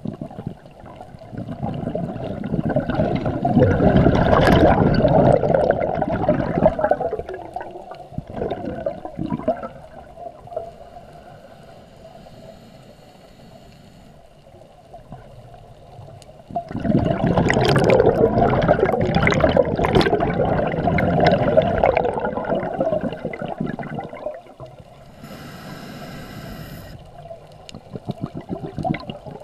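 Scuba diver breathing out through a regulator underwater: two long rushes of bubbles lasting a few seconds each, one early and one past the middle, with quieter stretches between. A brief high whine sounds near the end.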